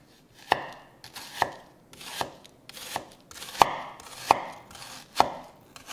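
Chef's knife slicing through a peeled onion and knocking on a wooden cutting board: about seven slow, evenly spaced cuts, each a short crunch ending in a sharp knock.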